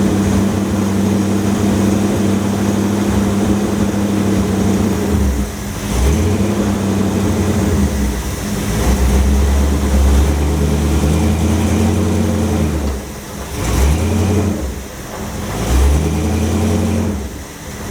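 Car engine running, its note stepping down and back up several times, with short dips in level between changes.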